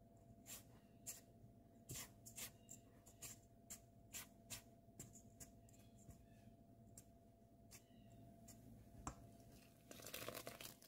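Silicone spatula stirring dry flour and sugar in a stainless steel mixing bowl: a run of faint scrapes and light taps against the bowl. Near the end, a brief splashing pour as liquid goes from a glass measuring cup into the flour.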